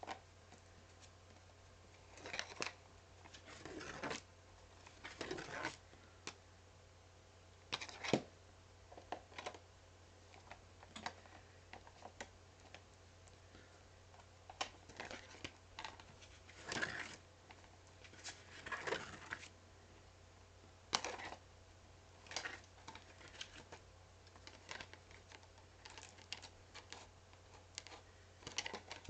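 A small spiral-bound paper notebook being handled and leafed through: its pages rustle and flip in short, irregular bursts, with a few sharp clicks and quiet gaps between.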